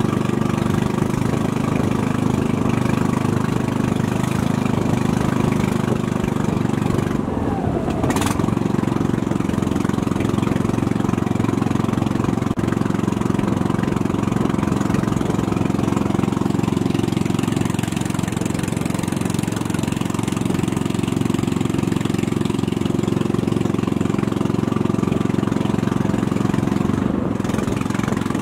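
Small boat engine running steadily as the boat moves along, a low even hum with several held tones.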